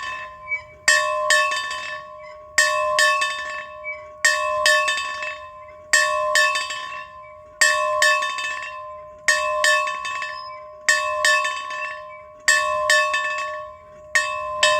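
A bell being rung steadily, the clapper striking twice in quick succession about every second and a half. Each pair of strikes rings on with a clear, bright tone that fades away before the next pair.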